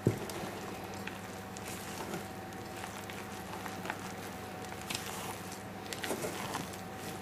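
A spatula folding thick muffin batter in a stainless steel mixing bowl: soft squishy scrapes and light knocks against the bowl, with a single thump right at the start, over a faint steady hum.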